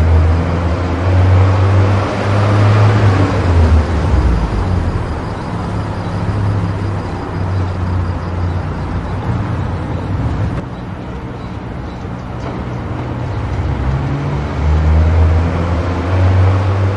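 Steady low engine rumble with traffic noise. It swells and eases several times without stopping.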